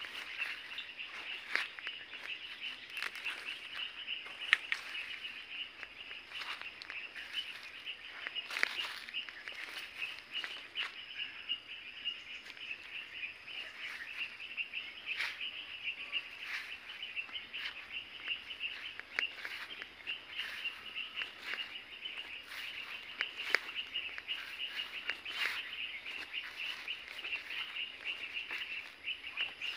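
Birds chirping in rural tree cover, over a steady high-pitched drone, with scattered short sharp clicks.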